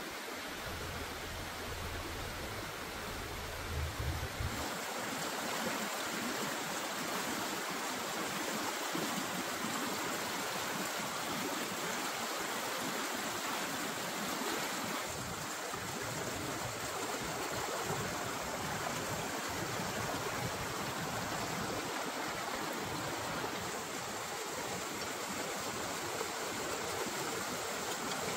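Rocky, shallow stream rushing over stones in a steady watery rush. For the first four seconds or so a low rumble with a few knocks sits under it.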